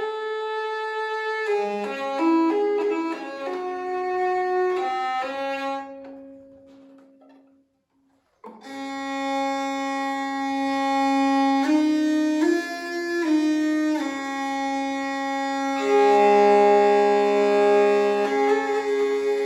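Evo hurdy-gurdy playing a melody over steady drone strings. The sound fades away about six seconds in, stops briefly, then the drones and melody start up again.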